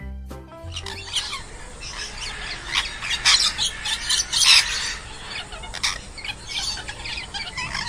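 Macaw squawking: a run of repeated harsh, screeching calls.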